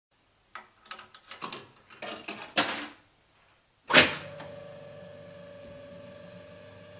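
Selection buttons of a 1963 Cameca Scopitone video jukebox pressed in a run of mechanical clicks and clacks. About four seconds in comes one loud clunk, followed by a steady machine hum.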